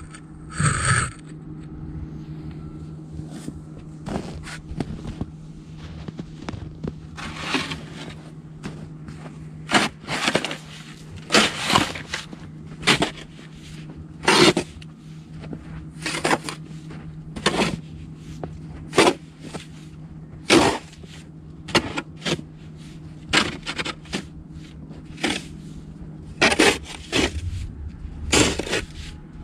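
Snow shovel scraping and pushing through snow, with short strokes about every one to two seconds, over a steady low hum.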